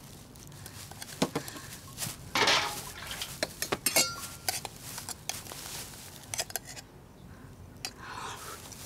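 Cutlery and dishes clinking at a table as someone eats, with scattered light knocks and one short ringing clink about four seconds in.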